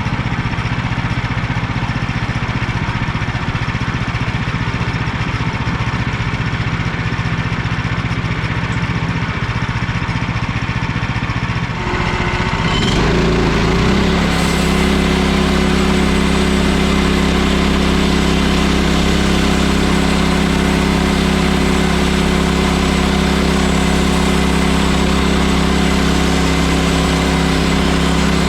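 Gas engine of an HM130 portable bandsaw mill running steadily. About twelve seconds in its note changes and it settles louder, with more hiss, then holds steady.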